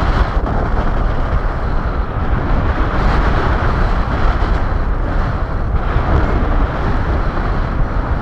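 Wind rushing over the camera's microphone while flying under a paraglider: a loud, steady rush of air with a fluttering low rumble.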